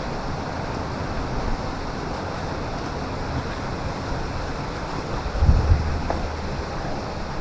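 Wind blowing across the microphone, a steady rushing with a stronger low buffeting gust about five and a half seconds in.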